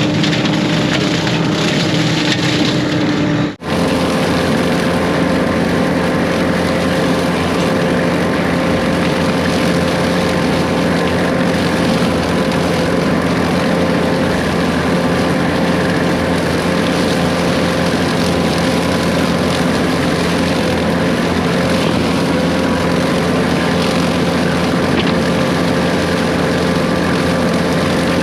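Case 140 excavator's diesel engine running steadily under load with its brush-cutting attachment spinning, a steady droning hum with a whine over it. A brief break about three and a half seconds in.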